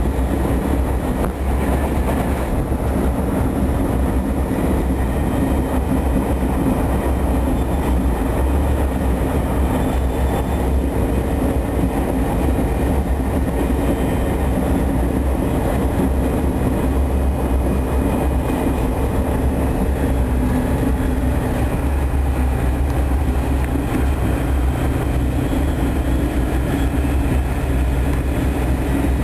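Steady running noise of a high-speed passenger train at speed, heard inside the carriage: a constant low rumble with no clear rail clicks.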